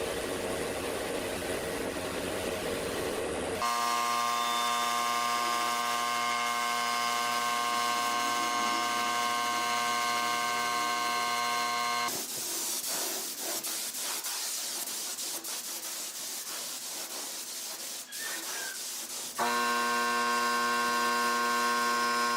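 A power tool running with a steady, many-toned whine, giving way to a stretch of hissing noise about halfway through before the whine returns near the end.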